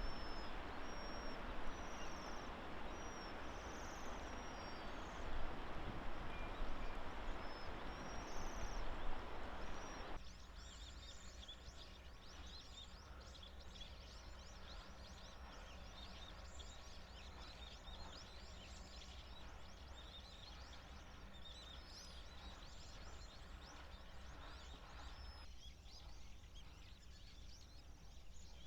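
A flock of waxwings giving thin, high trilling calls, many overlapping. A steady background hiss accompanies them at first and drops away abruptly about ten seconds in, after which the high calls stand out as a dense chatter.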